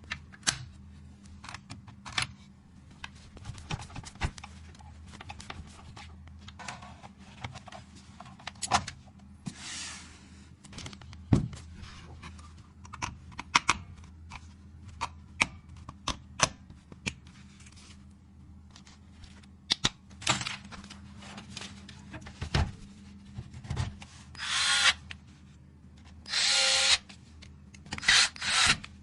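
Computer parts clicking and tapping as they are handled and fitted, with a few short runs of an electric screwdriver near the end.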